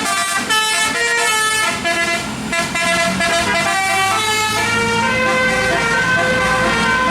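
Bus 'telolet' musical air horn playing a tune of quick changing notes, then longer held notes in the second half, with a bus engine's low rumble underneath from about four seconds in.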